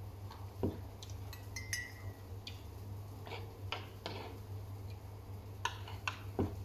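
Close-up eating sounds: chewing and crunching of vegetables, with a thin metal utensil clicking and clinking against a wooden bowl. There is a brief ringing clink about two seconds in and a few sharper knocks near the end, over a steady low hum.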